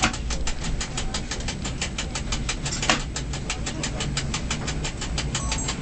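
Cab of an EN57 electric multiple unit under way: a low running hum with a very even, rapid ticking of about six ticks a second, and one louder click about three seconds in.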